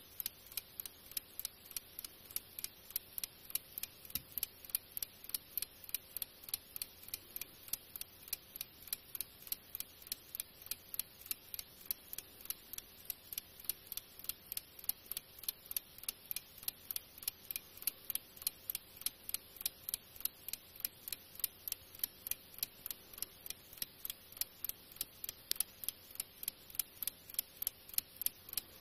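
Antique French alarm-clock movement with an escapement, ticking in a fast, even rhythm of a little over two ticks a second. The movement runs only when laid flat and stops when stood upright, and the owner notes it needs restoring and servicing.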